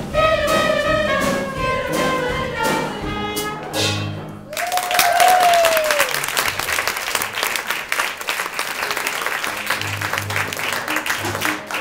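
A small live band ends a show tune with a held final chord that cuts off sharply. Audience applause and a cheer follow, and soft low band notes start again underneath the clapping near the end.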